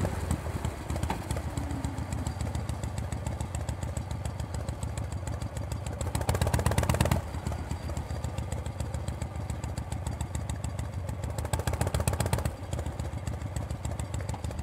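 Vintage Harley-Davidson V-twin motorcycle engine running at low speed as the bike rolls along, heard from the rider's seat as a dense run of firing pulses. The engine gets louder for about a second twice, around six and eleven seconds in.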